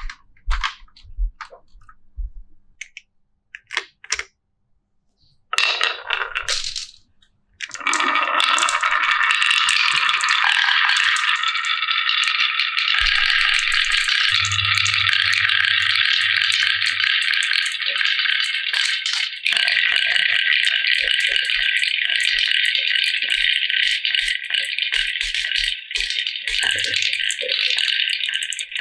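Marbles clattering on a wooden HABA marble run. There are scattered clicks at first, then from about eight seconds in a dense, continuous rattle as many marbles roll and knock together down the track.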